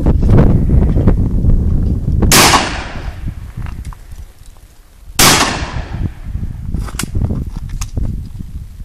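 Two 12-gauge shotgun shots about three seconds apart, each a sharp report followed by a fading echo, fired at a pair of sporting clays targets taken one after the other.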